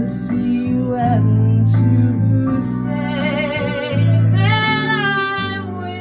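A woman singing a slow ballad over an instrumental backing track with bass, holding two long notes with vibrato in the second half.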